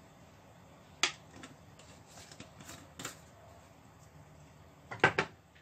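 A few sharp clicks and light taps, with a single click about a second in, scattered ticks after it, and the loudest, a quick run of two or three clicks, about five seconds in.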